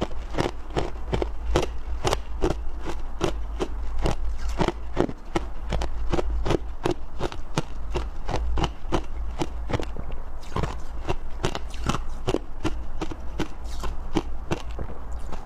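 Close-miked chewing of soft, powdery freezer frost: rapid crunches, several a second, with no pause, over a steady low hum.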